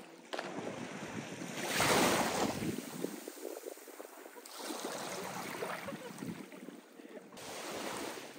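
Shallow seawater splashing as a person falls backward into it, loudest about two seconds in, then sloshing as she wades. Small waves break at the shore near the end, with wind on the microphone throughout.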